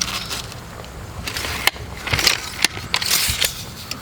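Scraping and knocking from handling a pipe sleeve in a wooden concrete form: a run of irregular knocks and several short scrapes, the strongest about two and three seconds in.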